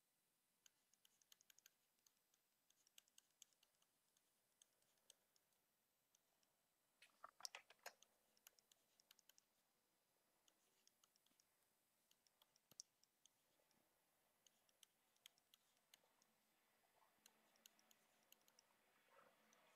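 Faint, scattered clicks and taps of a stylus on a tablet screen while handwriting, with a louder cluster of taps about seven seconds in.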